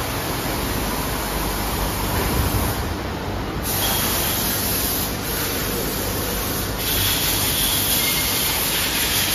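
Steady machine-shop din from rows of CNC lathes: a continuous hiss over a low rumble, brightening a little about a third of the way in and again past the middle, with a faint high whine coming and going.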